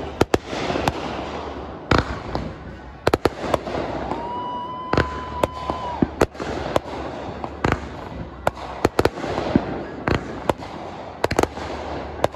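Aerial fireworks going off: many sharp bangs at irregular intervals over a continuous crackle, with a steady whistle lasting about two seconds near the middle.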